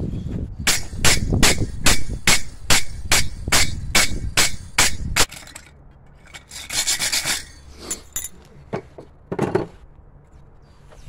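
Steel wire brush scrubbed hard over a freshly quenched steel flint striker on an anvil, cleaning off the scale: quick strokes about three a second for some four seconds, then a longer scrub and a short one near the end.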